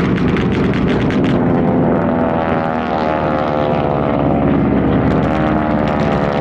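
Radial-engine propeller warplanes flying low past, a loud steady engine drone whose pitch slowly shifts as they go by.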